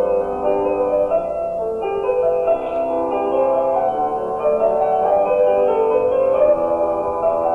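Film score music, a piano melody of held notes moving step by step.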